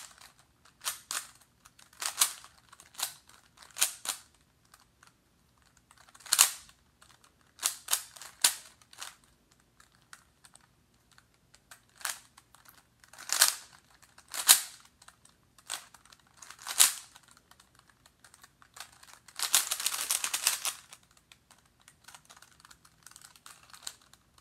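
Plastic 3x3 Rubik's cube being turned by hand: the layers click and clack in irregular single turns, often a second or more apart, with a rapid flurry of turns about twenty seconds in.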